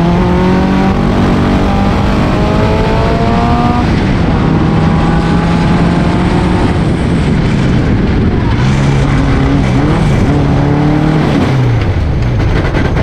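Reliant 750cc OHV engine of a Jeffrey Mk3b racing car at full throttle, revs climbing and then dropping about four seconds in. Near the end the revs fall away as power is lost, with loud knocking: the crankshaft had broken.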